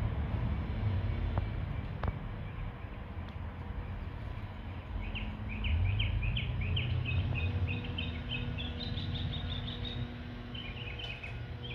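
A small songbird sings a quick series of short, high chirps about halfway through, then starts again near the end, over a steady low rumble.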